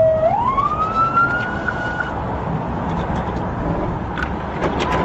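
Police car siren wailing: the tone falls, then rises once and cuts off about two seconds in, leaving steady road and engine noise.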